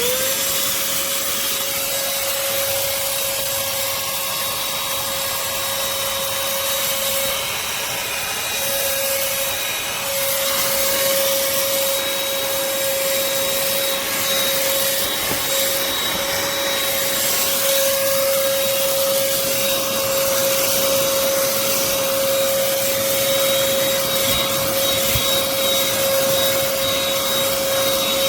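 Black+Decker cordless handheld vacuum switched on, its motor spinning up in a quick rising whine and then running steadily with a constant high whine over rushing air.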